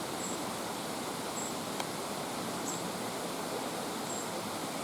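Steady rush of water from a stream and its waterfalls, with a few faint, very short high-pitched peeps over it.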